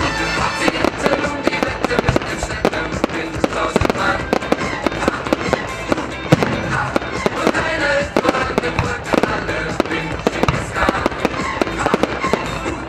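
Fireworks going off in rapid bangs and crackles, many a second, over music.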